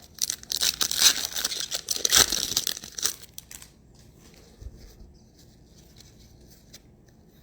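Foil wrapper of a trading-card pack being torn open and crinkled by hand: dense crackling and tearing that stops about three seconds in.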